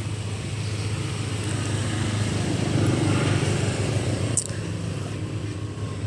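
Motor engine running steadily with a low hum, growing louder around the middle, with one sharp click about four and a half seconds in.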